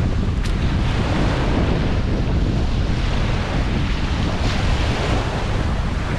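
Surf breaking and washing up onto a pebble beach, with wind buffeting the microphone in a steady low rumble. A single short click about half a second in.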